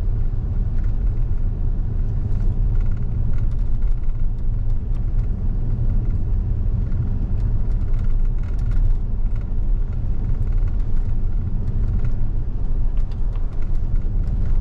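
Steady low road and tyre rumble heard inside the cabin of a moving Tesla, an electric car with no engine note.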